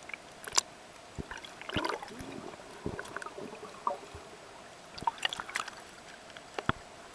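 Underwater bubbling and water movement around a swimming snorkeller, heard through a submerged camera, with scattered sharp clicks and knocks and a few short gurgles.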